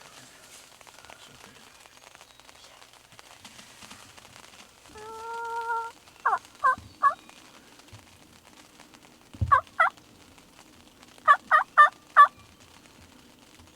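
Turkey calling: one drawn-out note, then short sweeping notes in quick groups of three, two and four.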